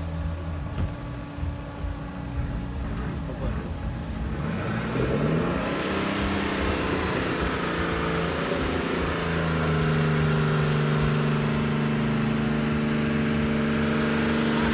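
Isuzu Trooper's engine idling steadily, then from about four and a half seconds the revs rise and settle at a steady, higher, louder pitch.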